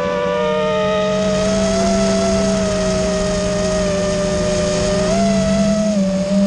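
Brushless motors and propellers of an iFlight Nazgul5 5-inch FPV quadcopter whining in flight over a steady low hum. Several tones shift with the throttle: one sinks lower in the first two seconds and climbs back about five seconds in.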